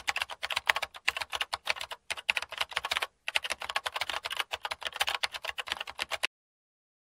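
Rapid typing on a keyboard: a fast run of key clicks with a few brief pauses, stopping about six seconds in.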